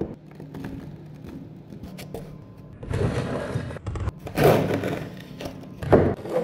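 Moulding sand in a wooden casting flask being scraped level with a board, a rough rasping noise in two loud stretches, then a sharp thud near the end as the flask is handled on a steel bench. Faint background music underneath.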